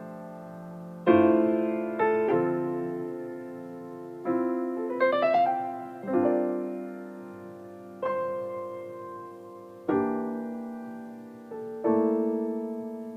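Background piano music: slow, sustained chords struck about every second or two and left to ring down, with a quick rising run of notes about five seconds in.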